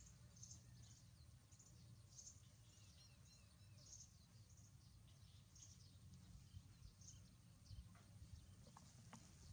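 Near silence: a faint low rumble with a scatter of soft, high-pitched chirps, about one or two a second.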